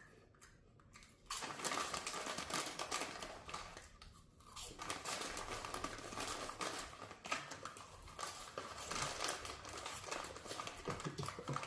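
Crinkling of a corn puff snack bag as a hand rummages inside it to pull puffs out. It starts about a second in, dips briefly around four seconds, then carries on.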